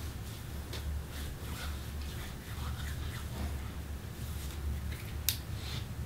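Faint handling noises: scattered soft taps and rustles with one sharp click about five seconds in, over a steady low hum.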